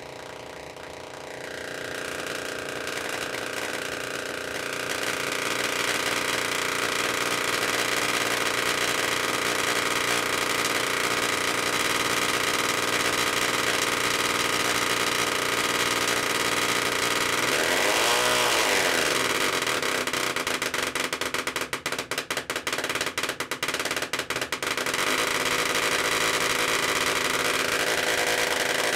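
Solid-state Tesla coil (CM300DU IGBT half-bridge) arcing from its breakout point with a loud pitched buzz, its pitch set by the interrupter frequency. It swells over the first few seconds, the pitch sweeps briefly about 18 seconds in, and a few seconds later it stutters with rapid dropouts as the interrupter settings are changed.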